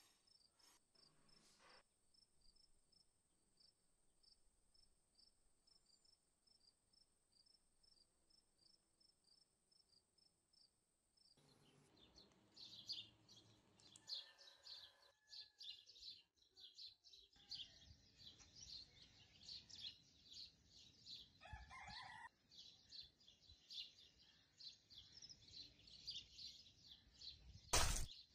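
Faint outdoor ambience: first a steady high whine with an even high ticking, about two ticks a second, then many small birds chirping, with one louder, longer call a little past the middle. Near the end comes a sudden loud pop and splash as a water-filled balloon bursts under a knife slash.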